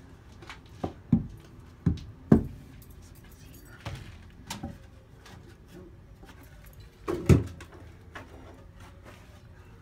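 A length of lumber knocking against wooden shoring posts and floor framing: about eight sharp wooden knocks and thuds at uneven intervals, some in pairs, loudest around two and seven seconds in.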